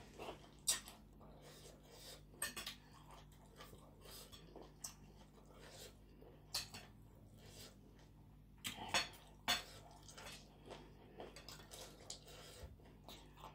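Metal spoon clinking and scraping against a plate of papaya salad as it scoops up salad and broth, in scattered sharp clicks, with a few louder clinks about a second in and again around nine seconds. Soft chewing is heard between them.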